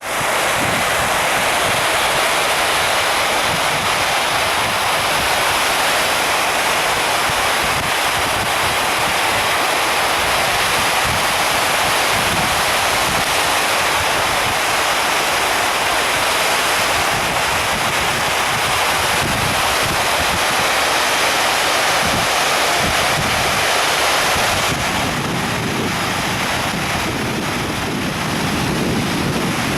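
Water fountain display splashing: a steady, even rush of falling water, with wind buffeting the microphone underneath. It eases a little about 25 seconds in.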